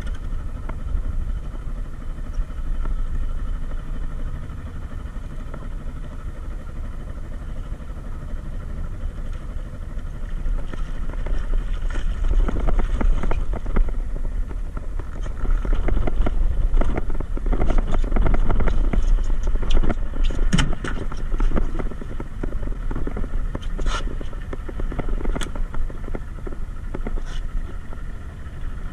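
A boat's engine running at idle with a steady low rumble. From about twelve seconds in come splashing and a series of sharp knocks as a large green jobfish is gaffed at the side of the hull and brought aboard.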